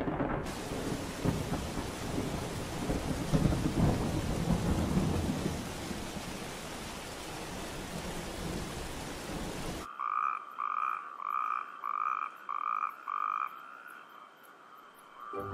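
Thunderstorm: low rolling thunder over steady rain, cutting off abruptly about two-thirds of the way through. It is followed by six short, evenly spaced piping calls, each on one clear note.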